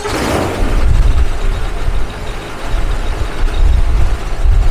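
Viking aircraft engine being cranked and firing up on its first start after installation, catching in the first half second and then running at idle with a loud, uneven low rumble.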